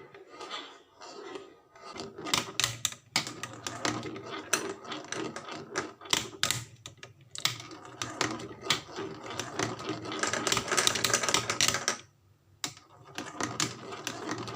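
Small rolling toys clattering down a wooden HABA slope track: a rapid, uneven run of hard wooden clicks and knocks. It grows busiest shortly before stopping abruptly, then starts again after a brief pause near the end.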